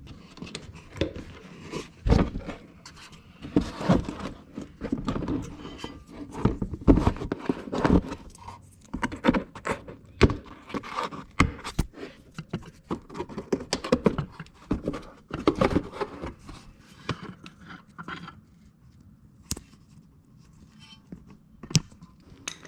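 Irregular knocks and scrapes of hands and tools working a car's plastic wheel-arch liner back into place, busy at first and sparser after about seventeen seconds.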